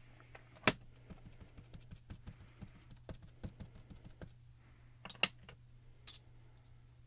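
Small ink cube dabbed onto clear photopolymer stamps on a stamping tool's door: a run of light, quick plastic taps, with three sharper clicks, the loudest about a second in and about five seconds in.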